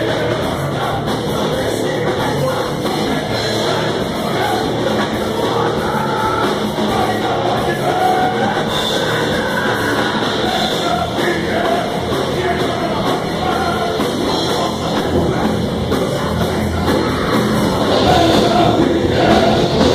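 A heavy rock band playing live at full volume, with singing over the band.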